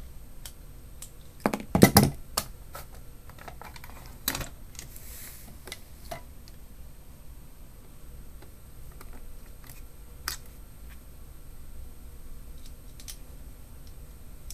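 Small sharp clicks and taps from the plastic and metal parts of a disassembled GoPro Hero3 camera and a small screwdriver being handled. They are loudest in a quick cluster about two seconds in, with single clicks near four and ten seconds.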